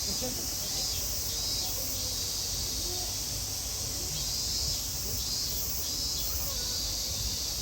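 Steady high-pitched drone of summer insects, pulsing slightly, over a low outdoor rumble with faint distant voices.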